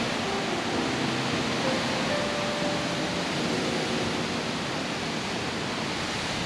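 Strong wind, blowing about 30 miles an hour, rushing steadily past the microphone as an even, unbroken hiss.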